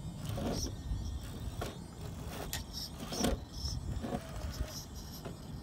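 Gmade Komodo Double RC crawler's electric motor and drivetrain whining in short throttle spurts as it crawls over rock, with several sharp knocks from the tyres and chassis on the stone.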